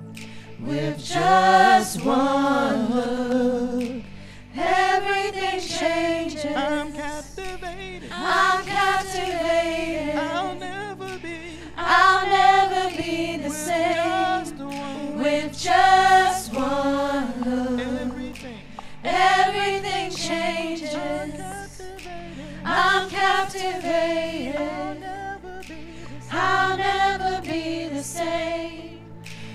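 A praise team of women singing a slow gospel worship song together into microphones, in long sung phrases with short breaks between, over steady held low chords.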